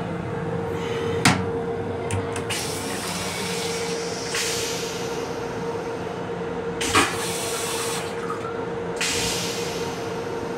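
Moving M7 railcar's running noise with a steady hum. A sharp knock about a second in, as the raised toilet seat strikes back against the wall, and another knock around seven seconds. Stretches of hiss come and go.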